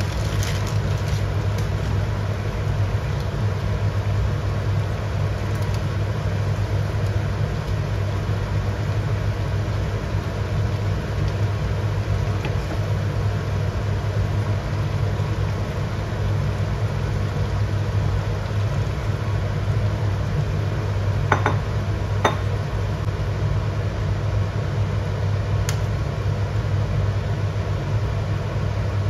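Gas stove burner running on a high flame under a wok, a steady low drone. Two sharp clicks about a second apart come roughly two-thirds of the way through.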